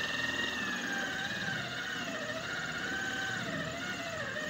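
Electric drill driving a hole saw through a bronze thru-hull fitting in a boat's hull: a steady whine that wavers up and down in pitch as the cutter loads and frees in the metal.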